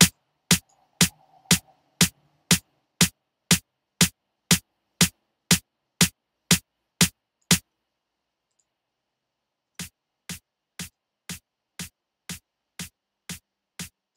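A single dry snare drum sample repeating twice a second, played through a compressor set to expand mode. After a pause of about two seconds it starts again much quieter, with the compressor now in peak mode with a softer knee.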